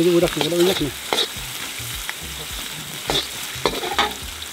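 Metal spatula stirring and scraping chopped aromatics frying in oil in a wok, over a steady sizzle, with a few sharper scrapes against the pan.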